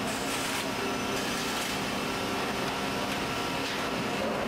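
Steady hum and hiss of factory machinery, with a few faint ticks.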